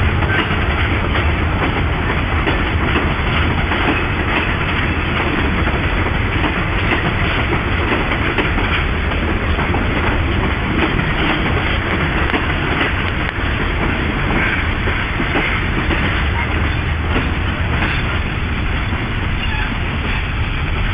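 Passenger coaches of a diesel-hauled train rolling past on the adjacent track: a steady rumble of steel wheels on rail with frequent small clicks.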